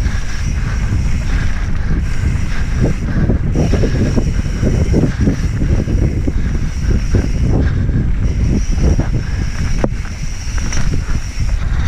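Wind rumbling on the microphone of a mountain bike ridden fast along a dirt singletrack, with the tyres rolling over dirt and loose stones and the bike rattling.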